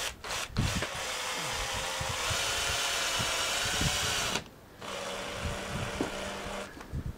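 Cordless drill-driver running as it drives a screw through rolled denim into a wooden stick: a long steady run, a short pause about four and a half seconds in, then a second, shorter run.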